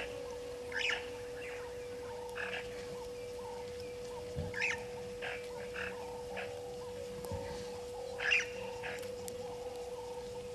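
Short high chirping calls from small animals, repeating irregularly about once or twice a second, over a steady hum.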